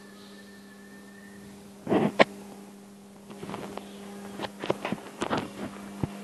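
Steady electrical hum with a faint high whine that stops about a second and a half in. A loud knock comes about two seconds in, followed by a run of scattered clicks and knocks.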